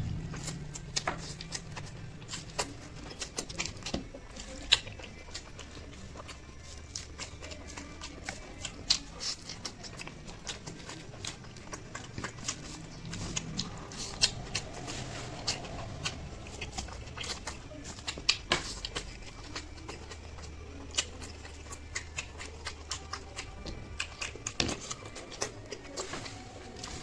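Close-miked eating of chow mein and eggs: irregular wet mouth clicks and smacks of chewing.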